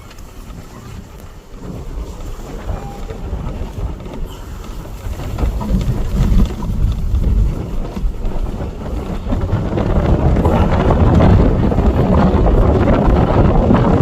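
Strong wind buffeting the microphone, a gusty low rumble that grows louder about five seconds in.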